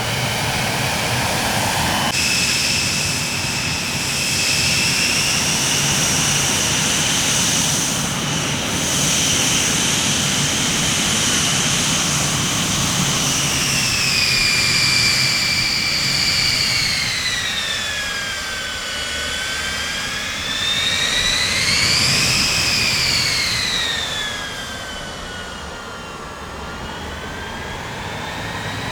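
Jet airplane engines whining over a steady rush of engine noise as the aircraft passes. About two seconds in, a high whine comes in; it slides gradually lower, rises and falls once more about two-thirds through, then drops as the sound fades somewhat near the end.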